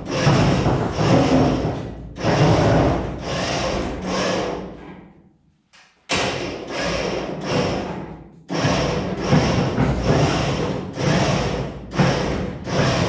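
Background music with a steady beat of about two pulses a second; it drops out briefly a little before halfway and then cuts back in abruptly.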